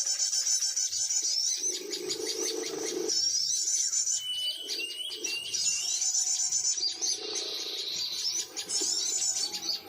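Many small birds chirping and trilling over one another in quick repeated high notes, with a low cooing note about two seconds in.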